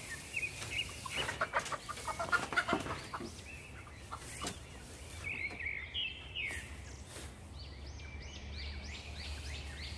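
Straw bedding rustling and crackling as it is handled and packed into a chicken coop for the first few seconds, then chickens clucking in a run of short calls through the second half.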